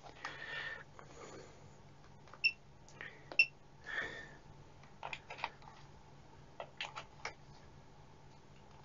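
Faint handling of a handheld process calibrator. Two short electronic keypad beeps come about two and a half and three and a half seconds in, then a few light clicks and knocks as its test leads are handled and plugged in.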